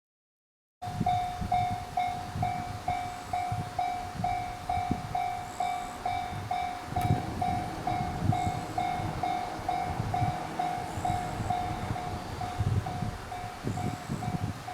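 Japanese level-crossing warning bell ringing about twice a second, starting abruptly about a second in, over a low rumble with irregular thumps.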